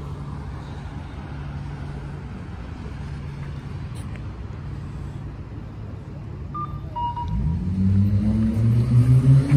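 City street traffic with a steady low engine hum. About seven seconds in, a nearby vehicle's engine rises in pitch and grows louder as it accelerates.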